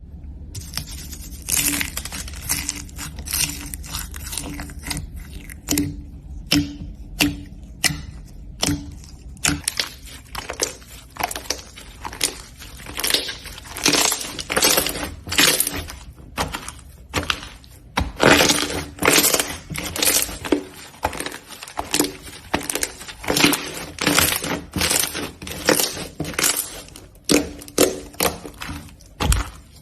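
Slime being worked by hand, giving a run of crackling, popping sounds in bursts about every half second.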